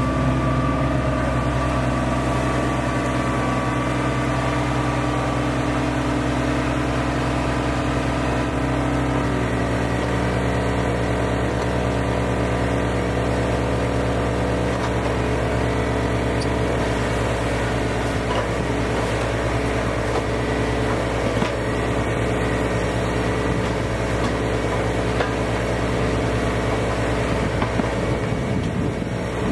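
Engine of a stump-removal machine running steadily, its note shifting twice.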